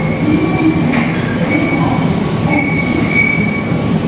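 Shopping trolley being pushed along a supermarket aisle: a steady loud rattle with a thin squeal that comes and goes.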